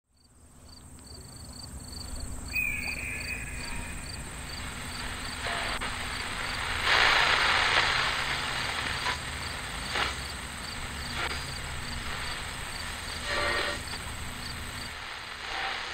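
Crickets chirping in a steady rhythm of about two chirps a second over a low background rumble, fading in over the first two seconds. Several short bursts of hiss break in, the loudest about seven seconds in.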